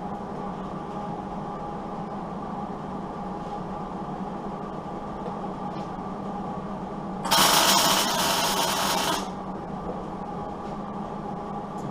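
A steady background hum. About seven seconds in, a loud rough burst of noise lasts about two seconds and then cuts off: a welder laying a tack weld on a steel truck door skin.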